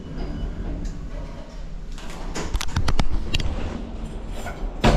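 Lift running with a steady low hum, then a quick series of clicks and clunks about two and a half seconds in as its sliding doors open, and one more click near the end.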